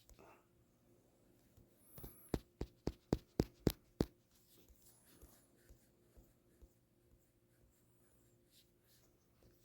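A quick run of about eight sharp clicks or taps, about four a second, around two to four seconds in, followed by a few fainter ticks, over a faint steady hum.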